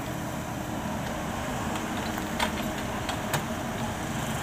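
Komatsu hydraulic excavator's diesel engine running under load as the bucket lifts soil out of the trench and swings it onto the spoil pile, with a steady hum. Two short sharp knocks, about a second apart, in the second half.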